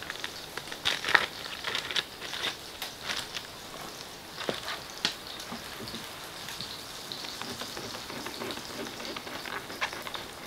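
Kitchen knife cutting vegetables on a wooden cutting board: irregular sharp taps and clicks, the loudest about a second in, over a steady soft hiss.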